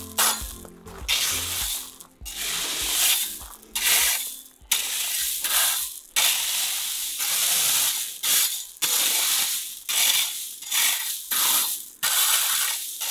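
Metal garden rake dragged through loose white gravel, crunching and rattling in short repeated strokes about one a second, as fresh gravel is spread and levelled on a path.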